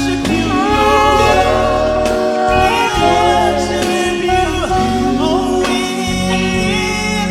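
Gospel worship music: voices singing a melody over instruments with a steady bass.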